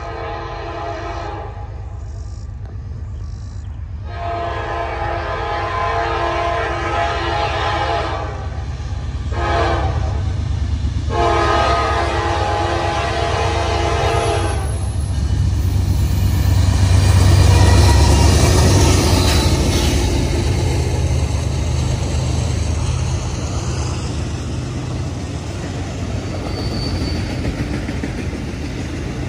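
Train horn sounding a chord in several blasts, the last long blast ending about halfway through. A locomotive's deep engine rumble then builds, loudest a little past halfway as it goes by, followed by the steady rolling of the train's cars on the rails.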